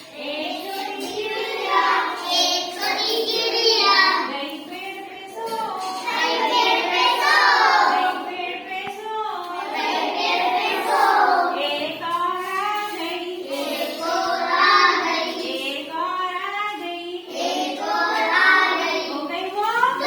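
A child singing a Hindi counting rhyme about a little bird, in a high voice, in short phrases with brief breaks between them.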